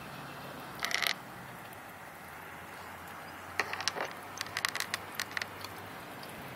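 Steady outdoor hiss with one short rasping sound about a second in, then a cluster of sharp ticks and clicks in the middle.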